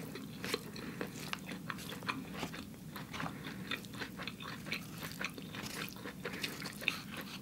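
Close-miked chewing of a mouthful of rice vermicelli noodles: many soft, quick wet mouth clicks.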